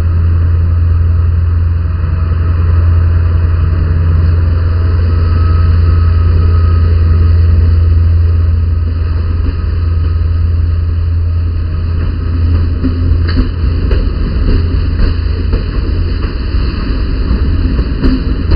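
SNCF CC 72100 diesel locomotive with its engine running in a loud steady low drone as it hauls Corail coaches along the platform. From about two thirds of the way in, sharp irregular clicks join it: the coach wheels going over rail joints.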